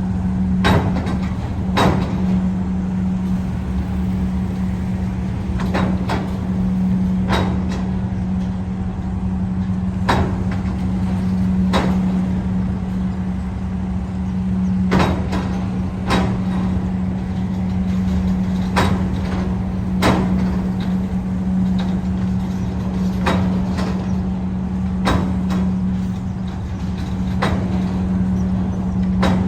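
Cars driving off a car ferry, their tyres clunking over the loading ramp a clunk every second or two, over the steady low hum of the ferry's engine.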